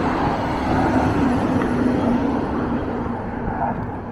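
F-16 fighter jet roaring overhead during an aerobatic display, a steady rumble that eases off slightly near the end.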